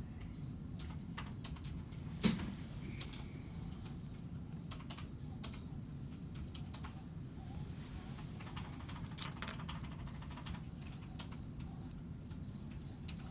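Computer keyboard being typed on in irregular runs of keystrokes, with one louder sharp knock about two seconds in.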